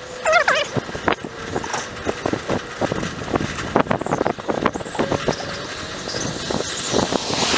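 Bicycle ride on a paved road heard from the rider's camera: steady road noise with irregular clicks and rattles, and wind on the microphone building near the end.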